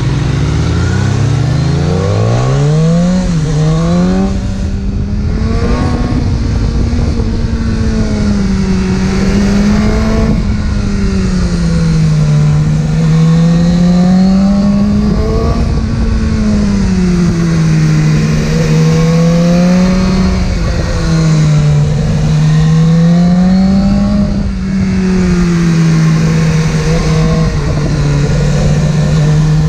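Inline-four sport motorcycle engine under way, heard from on board: it revs up hard at first, then the revs rise and fall gently every few seconds as the throttle is eased on and off at a steady pace.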